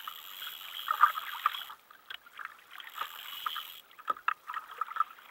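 Small waves lapping and slapping against a kayak hull, with irregular little splashes and ticks of water.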